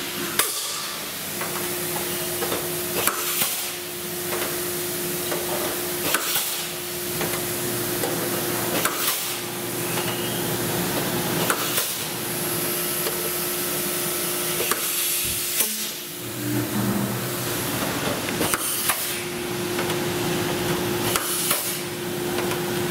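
Pneumatic blind-rivet puller run at about 90 psi, setting aluminium pulled rivets in an aluminium flaperon skin: a steady air hiss with a sharp snap every two to three seconds as each rivet is set.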